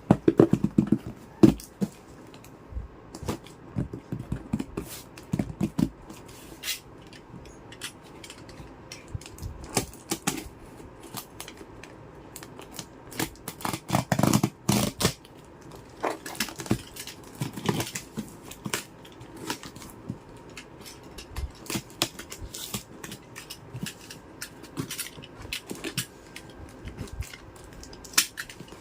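Small toy kitchen pieces and their packaging being handled: irregular light clicks, taps and rustles, with a few denser clattering bursts about halfway through.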